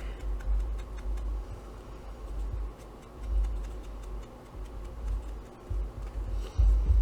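Uneven low thumps and rumble, with faint light clicking over them.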